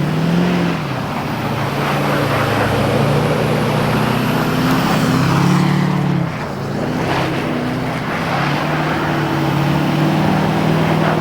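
Vehicle engine running, its pitch slowly rising and falling, under a steady rushing noise.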